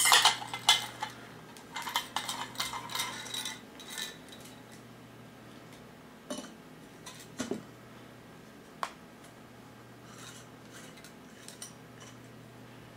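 Metal hookah parts clinking and clattering as the chrome stem is handled and fitted onto the glass base. The clatter is densest in the first four seconds, then comes as a few separate knocks and faint clicks.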